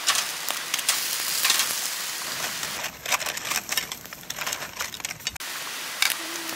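Beef sizzling and crackling on a camp grill, a steady hiss dotted with small pops. For a couple of seconds around the middle it drops abruptly to a quieter stretch before the sizzle returns.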